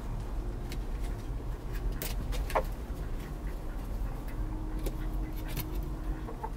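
A hen shifting in a straw nest: scattered light clicks and rustles over a steady low rumble, with one brief chirp about two and a half seconds in.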